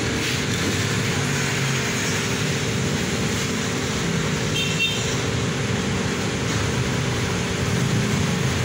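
Steady background hum and hiss with a low steady drone underneath; a brief high tone sounds about five seconds in.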